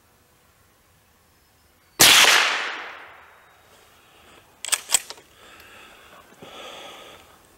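A single .22 LR shot from an FN Browning Trombone pump-action rifle about two seconds in: a sharp crack with a short echo trailing off. A few seconds later comes a quick run of sharp metallic clicks as the pump slide is worked to eject the case and chamber the next round, followed by softer, fainter noise.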